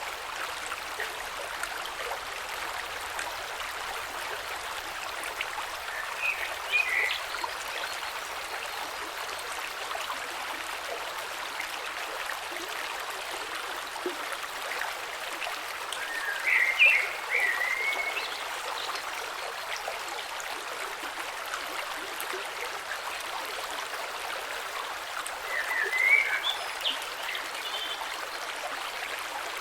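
Gentle creek water flowing and trickling over stones below a small waterfall, a steady even rush. Three times, a short cluster of high chirps cuts through.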